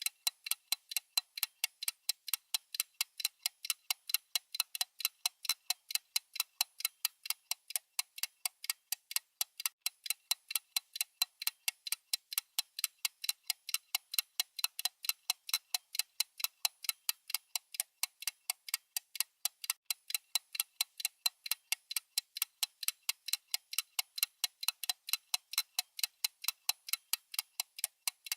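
A watch ticking steadily, several crisp ticks a second. The quick beat is that of a running mechanical movement.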